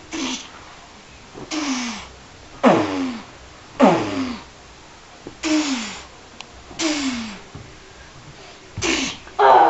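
A child's voice making fight sound effects for punches between stuffed toys: about eight short, breathy bursts, each ending in a falling pitch, roughly one a second.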